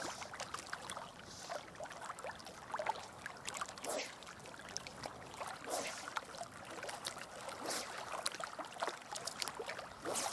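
Small wind-driven waves lapping against a rocky lakeshore: faint, irregular little splashes over a soft steady hiss.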